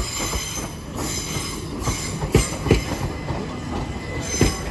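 Train wheels running slowly over the track, clicking in pairs as the axles of each bogie cross rail joints, with a thin high-pitched wheel squeal over a steady rumble.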